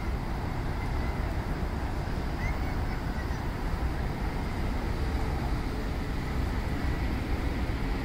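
Large outdoor street fans running, a steady rushing of moving air that is heaviest in the low end.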